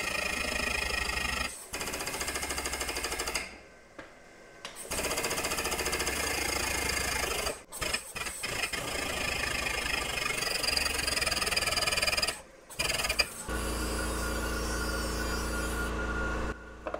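The air-over-hydraulic pump of a Black Widow 20-ton shop press chatters rapidly as compressed air drives it, pushing the ram down. It stops and starts several times with short pauses.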